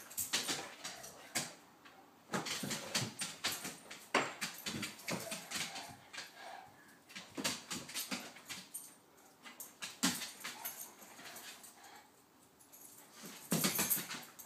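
Great Pyrenees dogs play-wrestling: irregular scuffling and paws scrabbling on the floor, with short dog whines, and a louder flurry near the end.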